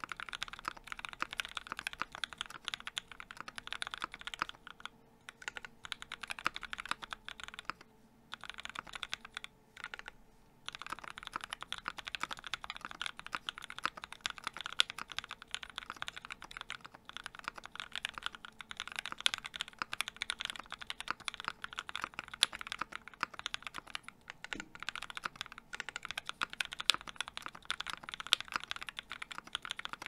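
Continuous fast typing on a custom mechanical keyboard with lubed and filmed linear switches (Black Cherry Pies, Krytox 205g0) under a brass plate and GMK keycaps: a dense run of keystrokes broken by a few brief pauses in the first third. A faint steady hum runs underneath for most of it.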